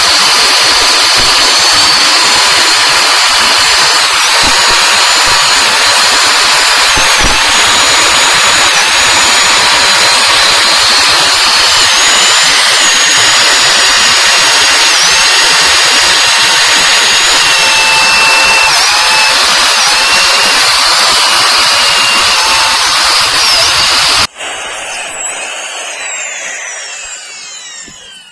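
Power drill cutting a hole through a rusty steel plate clamped in a vise: a loud, steady, high-pitched grinding whine whose tones waver and dip. About 24 seconds in it cuts off abruptly, leaving a fainter whine that falls in pitch and fades as the drill spins down.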